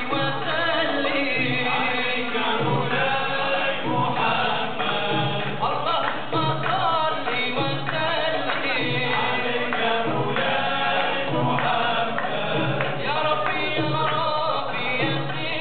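All-male vocal ensemble singing together in unison, with a frame drum keeping the beat.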